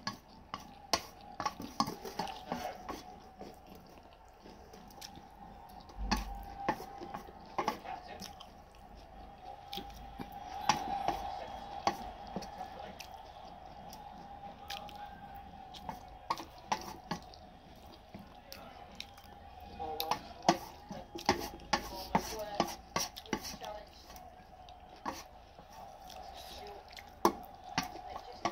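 Chopsticks clicking and scraping on a steel plate while noodles are picked up and eaten, with chewing and mouth sounds in between.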